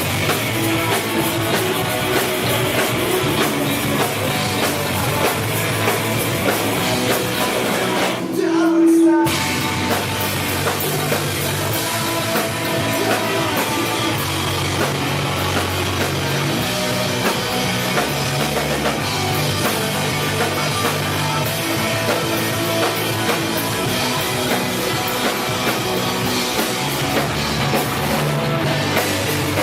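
Live rock band playing with drum kit and distorted guitars. About eight seconds in, the band cuts out for about a second, leaving one loud held note, then the full band comes back in.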